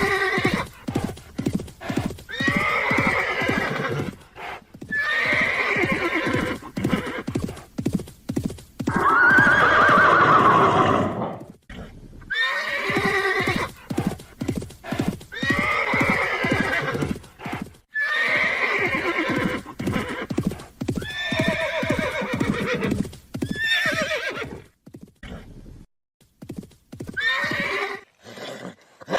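Horses neighing again and again, about ten quavering whinnies of a second or two each, the longest and loudest about a third of the way through, over quick clip-clopping hoofbeats.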